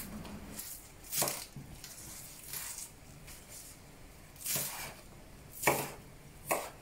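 Chef's knife chopping scallions into short sections on a bamboo cutting board: about five separate chops, roughly one a second.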